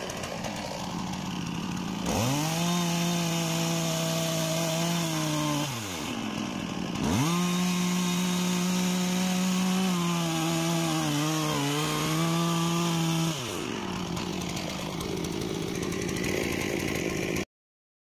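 STIHL MS 460 two-stroke chainsaw idling, then twice opened to full throttle to saw into the base of a jackfruit trunk. Each spell lasts a few seconds and the engine drops back to idle after it. In the second, longer cut the engine pitch sags and wavers as the chain loads up in the wood, and the sound cuts off suddenly near the end.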